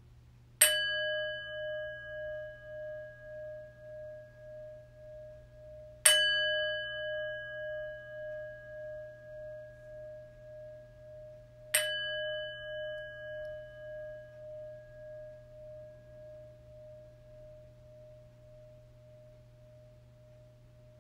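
A bell is struck three times, about five and a half seconds apart, rung to call a pause for silent prayer. Each stroke rings on with a pulsing waver and fades slowly, and the last fades out near the end.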